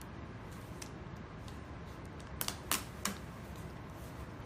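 Light clicks and taps from handling a smartphone and dabbing a dust-remover sticker on its glass screen, with three sharper clicks between about two and a half and three seconds in.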